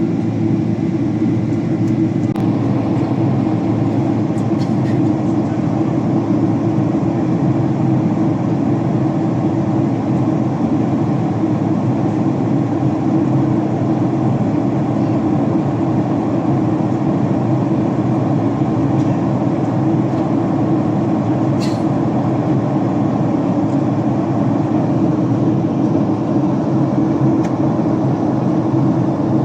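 Steady engine and airflow noise inside the cabin of a Boeing 767-300 airliner. It holds an even level throughout, with a single light click about twenty seconds in.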